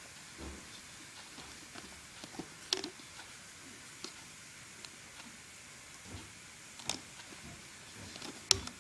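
Rubber bands and a loom hook clicking and snapping against the pegs of a plastic band loom as bands are stretched on, a scattering of light ticks with a couple of sharper snaps about three seconds in and near the end.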